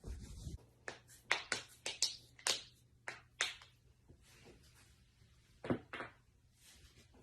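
Joints cracking: a quick run of sharp pops over about two and a half seconds, then two more pops a few seconds later. A dull thump comes at the very start.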